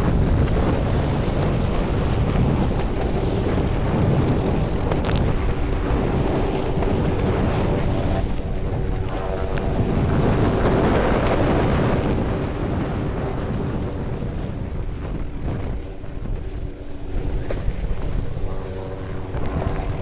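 Wind buffeting the microphone and the rush of whitewater as a surfboard is towed by a jet ski and then ridden down a giant wave. A steady engine drone comes through under the rush from about eight seconds in.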